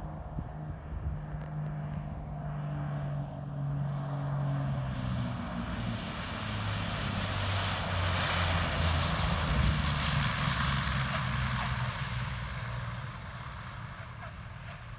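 Cessna 402B twin-engine propeller plane landing: the drone of its two piston engines and propellers grows louder as it comes in, drops in pitch as it passes closest about eight seconds in, then fades as the plane rolls away down the runway.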